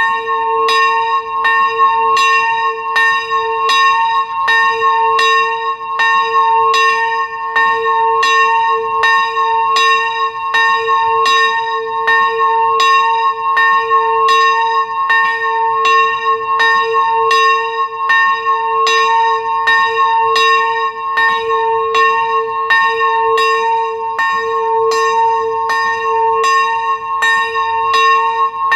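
A single swinging church bell with its strike note on a'' (a2), ringing with steady, even clapper strokes, about four every three seconds, each stroke's ring carrying into the next.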